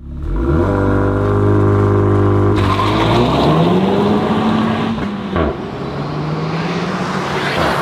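Renault Megane RS's 1.8-litre turbocharged four-cylinder engine catching and settling to a steady idle, then revving up as the car pulls away and accelerates. About five seconds in the note breaks briefly and drops in pitch as it shifts up, then pulls on steadily.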